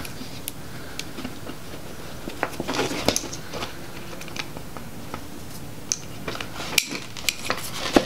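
Hands working wires out of a plastic PCM harness connector and through the wiring bundle: scattered light clicks and rustling of wire insulation and plastic, with a cluster of clicks near the end.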